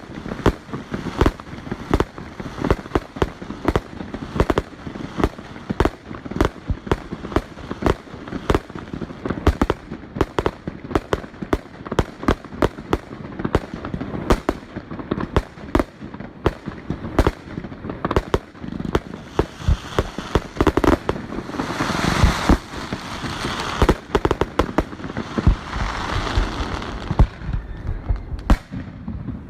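Aerial fireworks going off in rapid, irregular succession, many sharp bangs and pops overlapping, growing denser and busier from about two-thirds of the way through before thinning near the end.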